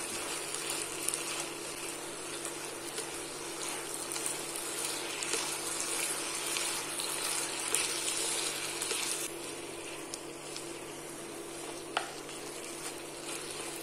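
Beef chow mein sizzling in a wok as egg noodles, beef and vegetables are tossed with wooden chopsticks, with one sharp click near the end over a steady low hum.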